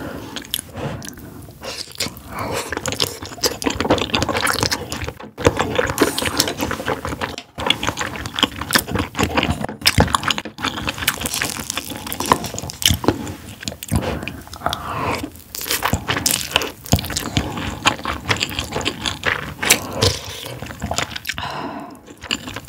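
Close-miked eating sounds: wet chewing and biting with many sharp clicks, mixed with utensil scrapes.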